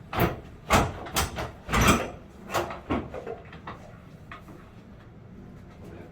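Knocks and clanks from a large old air conditioner being handled as it is taken out: about seven sharp hits in the first three seconds, then quieter scraping and handling noise.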